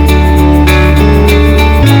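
Background music with guitar over a steady bass and a beat; the bass note changes near the end.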